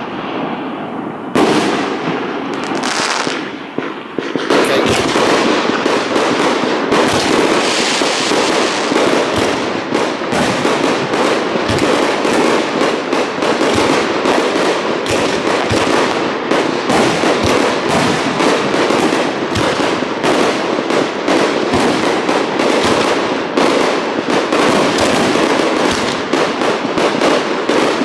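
Fireworks display: a few separate bursts at first, then from about four seconds in a dense, near-continuous barrage of rapid bangs and crackling.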